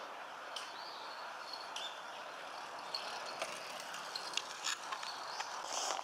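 Outdoor background with a steady low rush, over which come a few short, thin, high bird chirps and some faint clicks.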